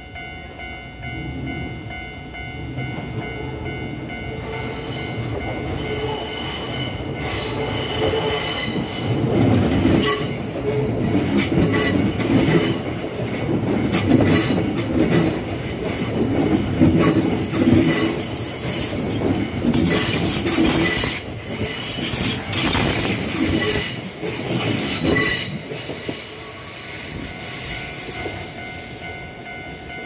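Kyoto Municipal Subway 20 series electric train passing close by on a sharp curve, its wheels squealing against the rails amid the clack of wheels over the track. The sound builds from about four seconds in, is loudest through the middle and fades near the end.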